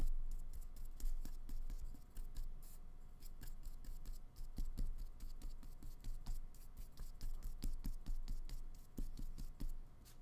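Flat paintbrush scratching and dabbing acrylic paint onto paper in short, irregular strokes, heard as a rapid scatter of small scratches and ticks.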